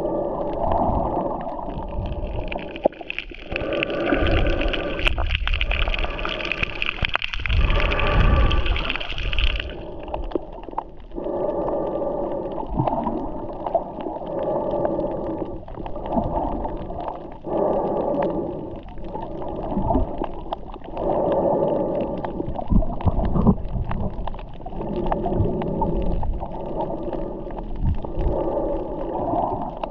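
Muffled underwater sound picked up by a snorkeler's submerged camera: water gurgling and a droning hum that swell and dip unevenly. A higher hiss above it cuts off about a third of the way in.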